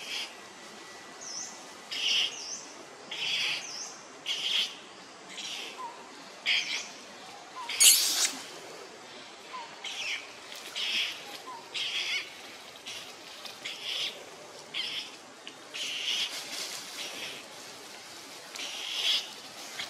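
A series of short, high-pitched animal calls, roughly one a second, with a few quick chirps near the start and one louder, sharper call about eight seconds in.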